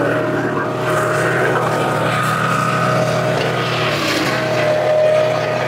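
Wolfe Ridge 35 HO log splitter running under work: its gas engine and hydraulic pump running steadily while ash rounds are split. A whine rides on the engine's hum, fading about three seconds in and returning stronger just after four.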